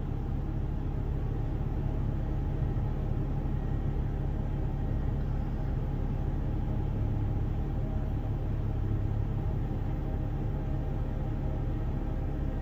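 A steady, loud low rumble with no rhythm or change in level.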